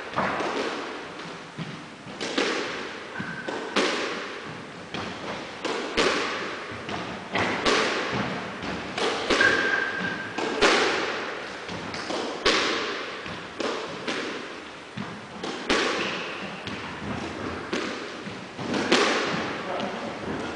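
Squash rally: a squash ball struck by rackets and smacking off the walls of an enclosed court, a sharp hit about every one to two seconds, each with an echoing tail. A brief high squeak about ten seconds in.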